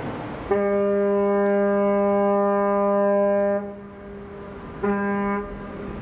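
Large bulk carrier's ship whistle sounding a deep, steady horn note: one long blast of about three seconds, then a short blast near the end. The signal appears to be a warning to a nearby cargo ship.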